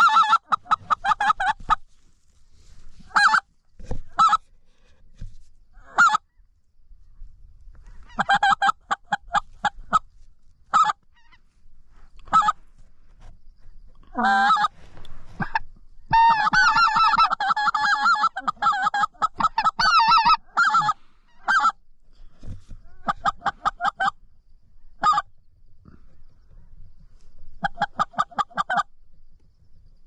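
Goose call blown in loud strings of rapid short honks and clucks, in bursts a few seconds apart, with a longer run of calling about two-thirds of the way through. This is hunter calling to draw a white-fronted goose in to the decoys.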